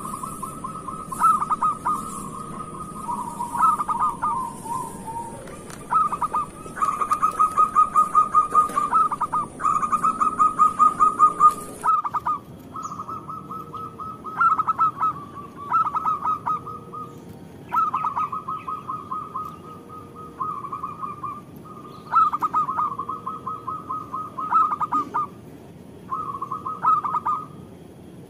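Zebra dove (perkutut) singing: short phrases of fast, rolling coo notes, repeated every one to two seconds, about a dozen phrases in all.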